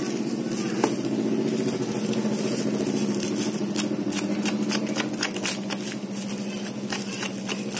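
An engine idling with a steady hum, while fingers pick at the plastic wrap and packing tape on a parcel, making crackles and clicks that grow busier in the second half.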